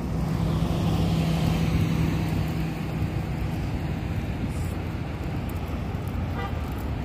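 Road traffic at a city intersection: cars and a van driving past. A steady low engine hum stands out over the tyre and road noise for the first three seconds or so, then fades into an even traffic rumble.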